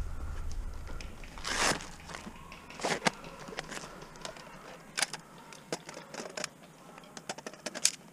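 Footsteps and movement through dry vegetation: scattered crunches and sharp clicks, with a longer rustle about one and a half seconds in and a cluster of clicks near the end.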